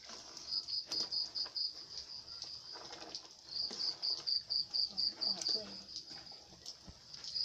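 Insect chirping: a high, even pulsing at about five pulses a second, in two runs, with a few sharp clicks among them.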